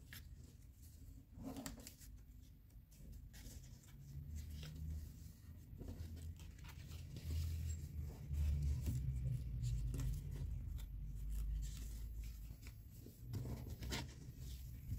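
Sheet of origami paper rustling and crackling as hands fold and press creases into it, with scattered short crisp clicks over a low rumble that is loudest in the middle.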